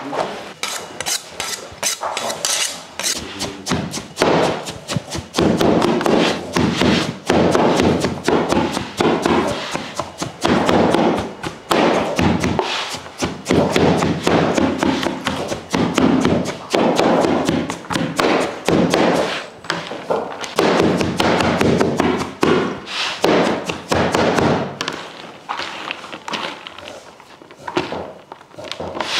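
A kitchen knife chopping shredded cabbage in a plastic basin: fast, uneven knocks as the blade strikes through the cabbage onto the basin floor.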